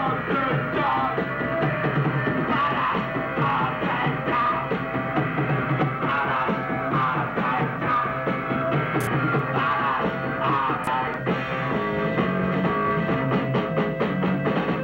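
Rock music, a punk-style band with a singer's wavering voice over it. The singing drops out about eleven seconds in, leaving the band playing a steady beat.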